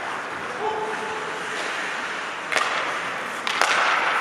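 Ice hockey sticks hitting the puck: two sharp cracks about a second apart, over steady echoing rink noise.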